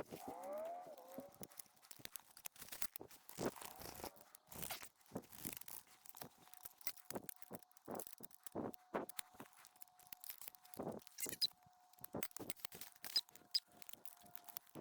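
Irregular footsteps and rustling through leaf litter and brush, light crunches and brushing at an uneven pace. A faint steady tone joins about six seconds in.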